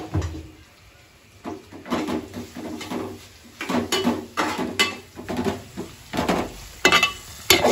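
Kitchen clatter from cooking: a steel spatula stirring, scraping and knocking against a steel pan, in an irregular run of knocks and scrapes that starts about a second and a half in.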